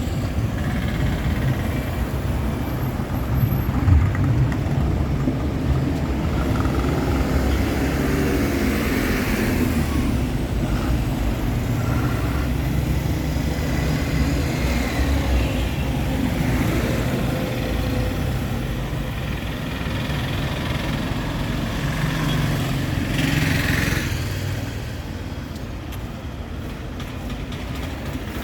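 Town street traffic: vehicle engines running and passing, a steady low hum that eases off somewhat near the end.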